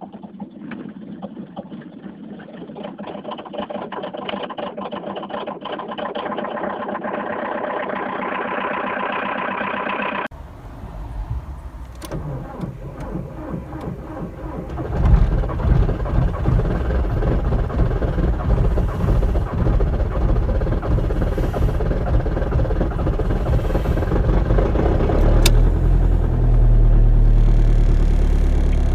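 An older petrol car's engine runs and rises in pitch for about ten seconds. Then a Seat Leon 1.9 TDI PD four-cylinder diesel, glow plugs heated three times at −16°C, cranks and catches about halfway through and settles into a cold diesel idle.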